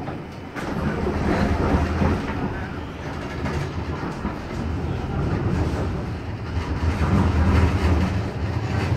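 City tram running along its street track, heard from inside the car: a steady rumble of wheels on the rails, growing louder near the end.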